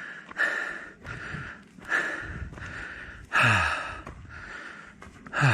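A hiker breathing hard while climbing uphill, heavy breaths about once a second, with a short voiced sigh falling in pitch about three and a half seconds in and again near the end.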